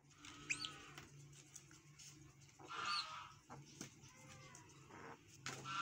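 Mongooses giving short, high-pitched squealing calls while crowding round their food; three louder calls come about half a second in, around three seconds, and near the end, with faint clicks between.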